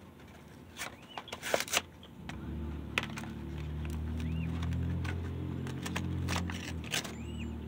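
Sharp clicks and crinkling of paper being handled about a second in, then a low engine hum starts about two seconds in and slowly grows louder.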